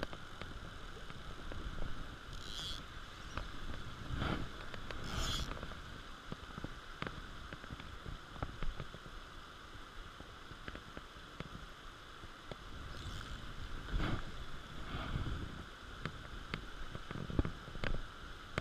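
Steady rush of water spilling over a low weir dam, with wind buffeting the microphone in an irregular low rumble and scattered faint clicks.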